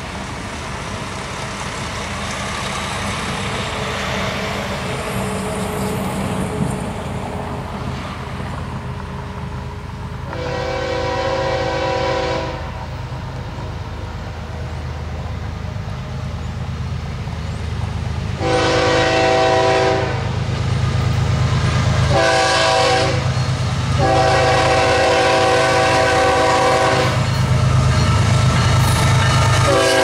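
Canadian Pacific GE AC4400CW diesel locomotive approaching with its engine rumble growing louder. It sounds its multi-tone air horn in the grade-crossing pattern: long, long, short, long. The locomotive reaches the listener near the end.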